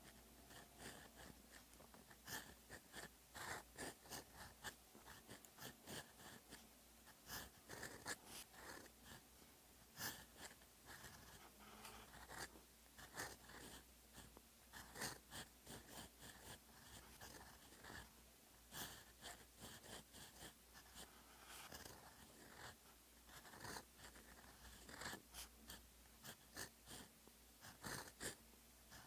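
Fountain pen with a gold nib writing Korean hangul on paper: faint, quick scratches and taps, one for each pen stroke, in irregular runs with short pauses between characters.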